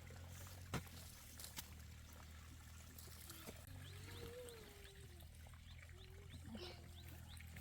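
Faint animal sounds over a steady low hum: about halfway, a drawn-out call that rises and falls, with a string of short high chirps around it, after a few light clicks early.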